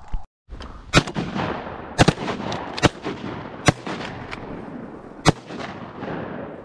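Five shotgun shots fired at ducks in an irregular volley, each report rolling off in a long echo across the pond.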